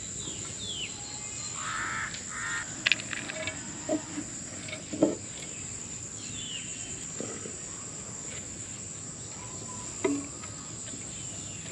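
Crickets chirring steadily, with birds calling now and then. A few sharp knocks and scrapes of a ladle on a clay dish and an aluminium pot as boiled rice is spooned in.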